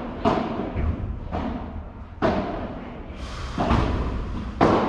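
Padel rally: five sharp knocks of the ball being struck by rackets and bouncing off the court, roughly a second apart.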